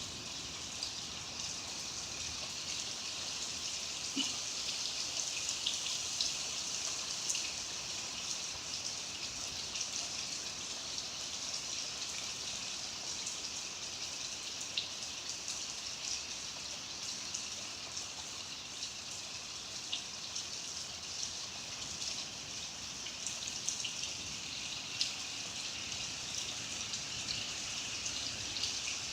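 Steady rain falling: an even hiss with scattered drops ticking on nearby surfaces.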